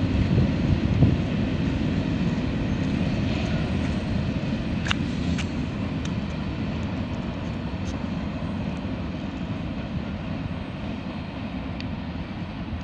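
Low, steady rumble of a train's diesel locomotive engine, slowly fading.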